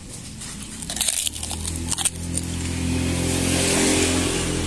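A motor vehicle's engine running with a steady hum that grows louder from about a second in, then holds. A few clinks of a metal spoon on a china plate near the start.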